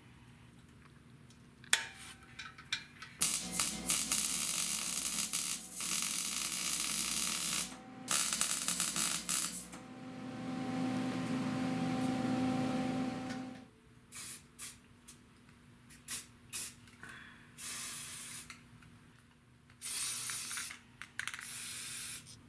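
MIG welder crackling in runs and short tacks as a steel patch is welded into a scooter frame at the engine-mount hole. There is a steadier hiss in the middle, and an aerosol spray can hisses in short bursts near the end.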